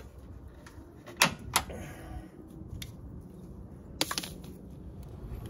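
A few sharp plastic clicks and snaps, two close together about a second in and another near the end, as a plastic bracket and its clips are worked loose by hand.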